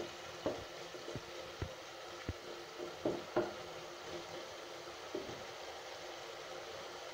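Onion, green chilli and spice paste sizzling in an aluminium pan while a wooden spatula stirs it, knocking and scraping against the pan about eight times. The knocks stop about five seconds in and the steady sizzle goes on.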